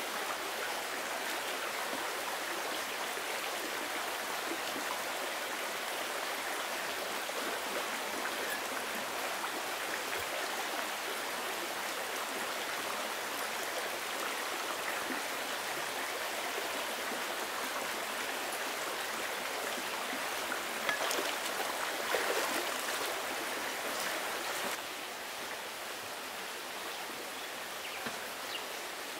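Steady rushing of a forest stream's running water. A few brief knocks and rustles come about three-quarters of the way through, and the water sounds a little quieter for the last few seconds.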